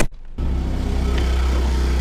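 Steady low engine hum, cut off for a moment just at the start before running on unchanged.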